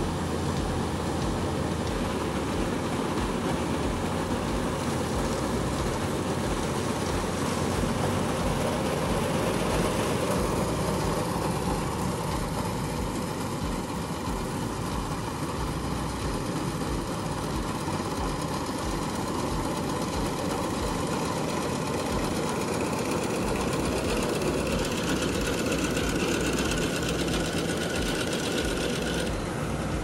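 Diesel farm machinery running steadily, a dense, unbroken mechanical noise.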